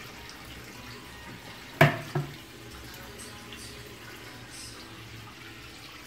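Wash water draining by gravity from a Mito WM1 mini washing machine's drain hose, running steadily into a stainless-steel sink. Two sharp knocks close together about two seconds in.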